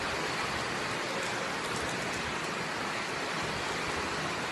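Steady heavy rain, an even hiss with no breaks, with a few faint light ticks about two seconds in.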